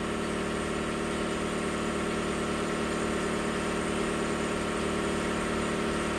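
Steady, unchanging hum of a running shop machine's motor.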